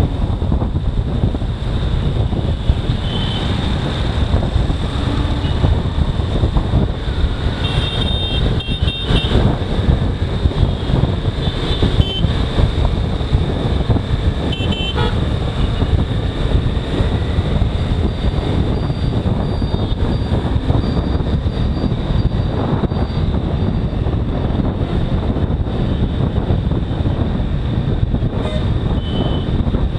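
Motorcycle riding in city traffic: steady engine and wind rush, with short vehicle horn toots breaking in several times, around eight, twelve and fifteen seconds in and again near the end.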